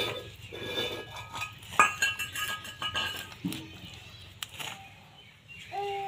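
Small climbing perch being cleaned by hand against an upright fixed kitchen blade (boti), giving scattered scraping and cutting clicks. About two seconds in there is a sharp metallic clink that rings briefly.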